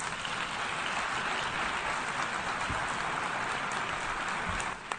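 Delegates in an assembly hall applauding: a steady wash of clapping that dies away near the end, leaving a few scattered claps.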